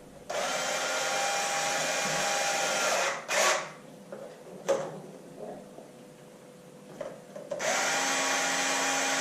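A small electric motor runs in two steady bursts of about three seconds each, winding down at the end of each, with two short knocks in the pause between them.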